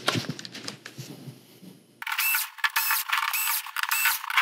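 Screws being backed out of a TV main board with a screwdriver: a few faint clicks, then from about two seconds in a quick run of short, high-pitched whirring and clicking strokes, about three a second.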